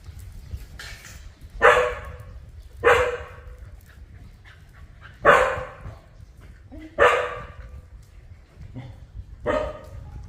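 Dog barking: five loud, separate barks at uneven intervals.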